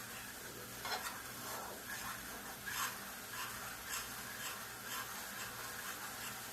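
Spoon scraping around a pot as a boiling margarine-and-brown-sugar rum glaze is stirred, in short irregular strokes over a faint steady sizzle.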